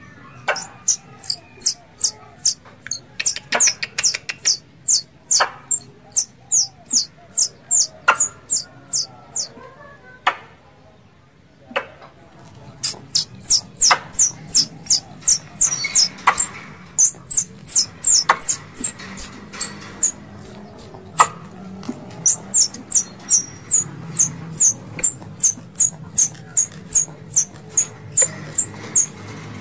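Squirrel in heat calling: a fast run of short, high chirps, each falling in pitch, about two to three a second. The run pauses for about three seconds near ten seconds in, then resumes, with scattered clicks between the chirps.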